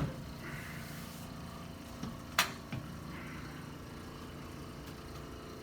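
A single sharp crack about two and a half seconds in, with fainter clicks just before and after: a chiropractic adjustment of the back. A steady low hum runs underneath.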